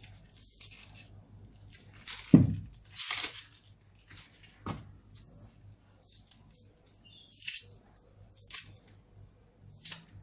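Fresh herbs and spring onions being trimmed and picked by hand with a small knife: scattered short tearing, snapping and rustling sounds, the loudest a thump a little over two seconds in, over a faint low hum.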